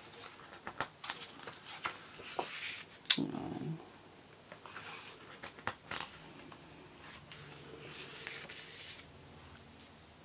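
Pages of a large hardback photo book being turned by hand: the heavy paper slides and rustles in soft swells, with scattered light taps and one sharper tap about three seconds in.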